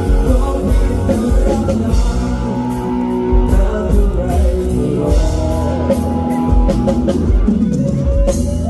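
Band music with a drum kit keeping a steady beat under sustained melodic instruments.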